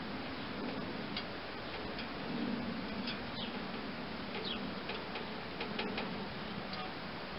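Irregular light plastic ticks and clicks, about one a second, from a headlight wire and zip tie being worked along a lawn tractor's metal grille, over a steady background hiss.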